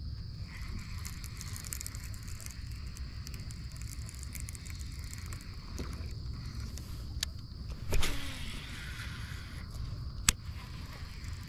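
A cast with a baitcasting rod and reel about eight seconds in: a sharp whoosh with a falling whir and hiss of line running out, then a single sharp click about two seconds later as the reel is engaged. Under it, a steady high insect drone and a low rumble of wind on the microphone.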